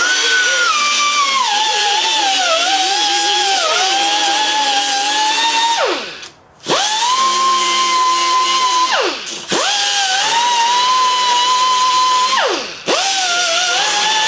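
Right-angle die grinder whining as it grinds the metal edges of a Briggs & Stratton engine block clean for brazing, its pitch dipping and wavering as it is pressed into the work. It is let off and winds down about 6, 9 and 13 seconds in, starting up again each time.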